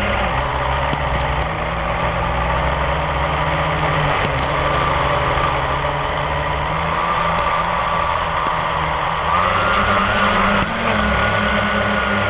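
A steady engine-like drone runs throughout, a low hum with a higher whine above it. The whine rises a little about nine seconds in and steps up again about a second later. A few faint sharp pops from distant fireworks sit under it.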